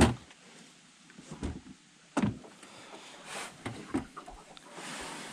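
A few irregular knocks and thumps, the loudest right at the start and another about two seconds in, followed by a faint rushing noise near the end.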